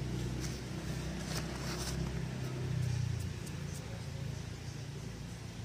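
A motor engine running with a steady low hum that swells about three seconds in and then eases off, with a few faint clicks over it.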